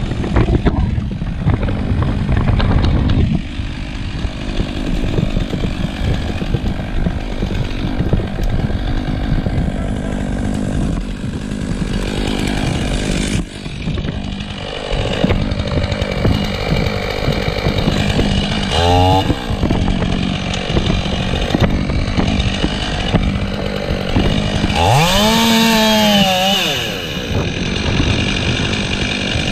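Chainsaw running and cutting into elm wood. Near the end its pitch rises and then falls back as it is revved.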